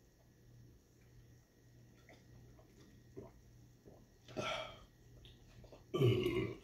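A man burps loudly near the end, right after drinking water. A shorter, quieter burst comes about four seconds in, over faint clicks of handling.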